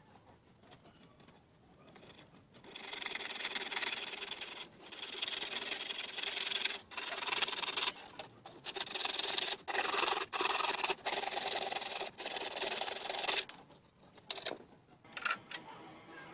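Coarse-toothed bow saw cutting a small strip of thin wood: back-and-forth strokes with short breaks between them, starting a few seconds in and stopping about three seconds before the end. A few light taps follow near the end.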